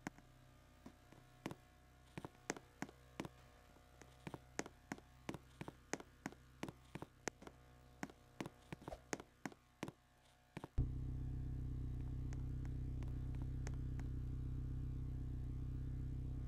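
About a dozen seconds of irregular light clicks and knocks, then a motor starts abruptly about eleven seconds in and runs steadily at one pitch.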